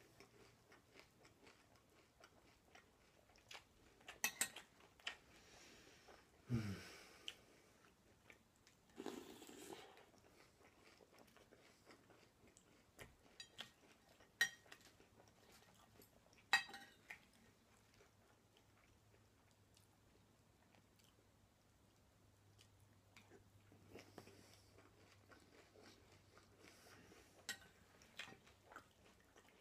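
Faint chewing and crunching of breakfast cereal in milk, with a few sharp clinks of a metal spoon against the bowl.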